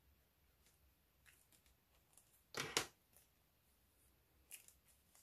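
Plastic clicks from handling Stampin' Blends alcohol markers: a sharp double click about two and a half seconds in, with a few softer clicks around it and near silence between.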